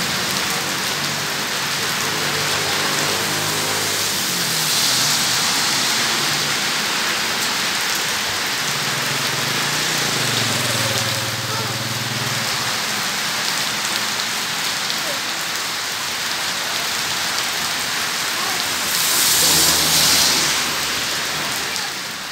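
Steady rain falling on a wet road and paving, with motor vehicles passing on the wet road now and then. A louder surge of hiss comes near the end.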